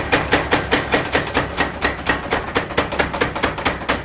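Mechanical power hammer striking a red-hot steel bar on an anvil in rapid, even blows, about five a second, each with a short metallic ring. The blows are flattening the hot steel into a knife blade.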